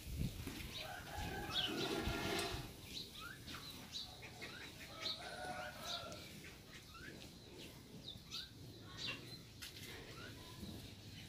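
Small birds chirping, many short rising calls scattered throughout, with a brief lower call from about one to two and a half seconds in.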